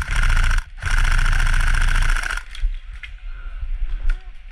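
Tokyo Marui SCAR-L electric airsoft rifle firing full-auto, two bursts of rapid buzzing shots with a brief break between them. The second burst lasts about a second and a half, and a few sharp clicks follow in the quieter stretch after it.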